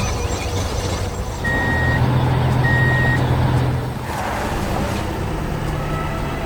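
Heavy truck engine running with a low rumble, swelling for a few seconds, while a reversing alarm gives two beeps about a second apart.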